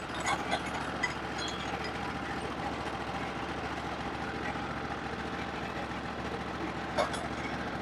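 Portable band sawmill's engine running steadily at idle, with a few light clicks, the clearest near the end.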